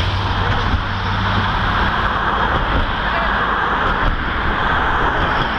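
Cycling-race team cars driving past one after another close by: engine and tyre noise on the road, with a low engine hum fading in the first second or so. People are talking over it.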